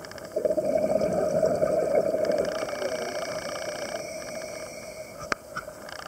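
Underwater, a scuba diver's exhaled bubbles from the regulator gurgle loudly for about two and a half seconds and then fade. A faint steady hum runs beneath, and there is one sharp click near the end.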